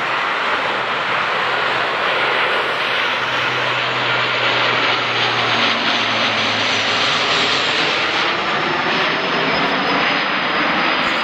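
De Havilland Canada Dash 8-400 turboprop airliner passing low overhead on landing approach: a loud, steady rushing drone from its two engines and propellers. A low propeller hum comes through in the middle, and a high whine slowly falls in pitch as it goes by.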